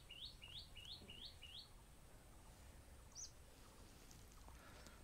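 Faint bird calls against near silence: a quick run of about six rising chirps, roughly three a second, in the first second and a half, then one higher chirp about three seconds in.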